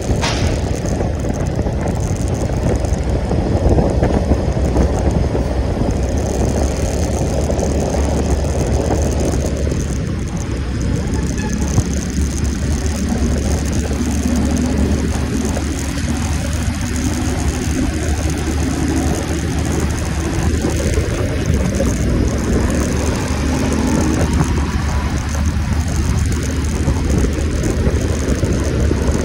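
Steady wind buffeting and road noise from a Yamaha scooter ridden at about 35 km/h, heaviest in the low rumble, with a faint engine hum underneath in the middle stretch.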